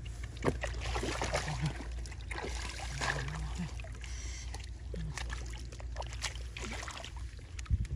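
Water splashing and sloshing in irregular bursts over a steady low rumble, with a few short vocal sounds.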